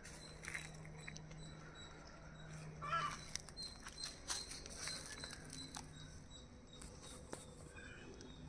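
A bird gives a short harsh call about three seconds in, over light clicks and rustling.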